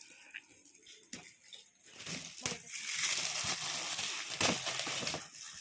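Gift wrapping being torn open and crumpled as a present is unwrapped: irregular crackling and rustling, much louder from about two seconds in.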